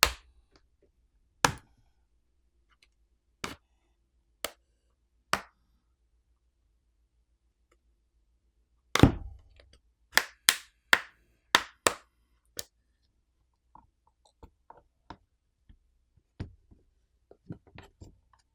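Plastic catches of a tablet's back housing snapping loose one after another as a pry tool is worked along its edges. There are sharp single clicks at first, then a louder snap about halfway through followed by a quick run of clicks, and fainter ticks near the end.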